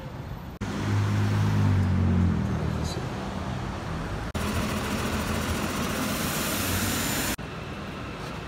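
New York street ambience from several clips spliced with abrupt cuts. A motor vehicle's engine drones low and then fades. A steady rushing traffic noise follows, then a quieter street hum.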